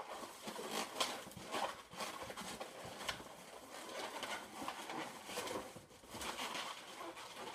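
Latex 350 modelling balloons squeaking and rubbing against each other and the hands as the back legs are twisted and locked into place, in short irregular squeaks and rubs.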